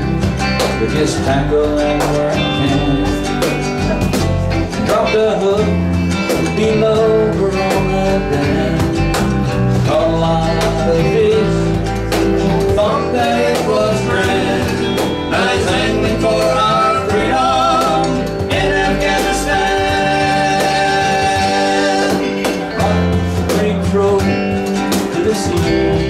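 A small band plays a country-style song live on electric bass, acoustic guitar, cajon and electric guitar. A wavering lead line rises above the band from about 18 to 22 seconds in.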